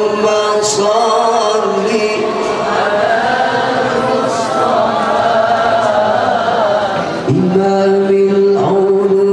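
A man singing sholawat, Arabic devotional praise of the Prophet, through a microphone and PA in long, ornamented, wavering phrases. A short break comes about seven seconds in, then a new long steady note.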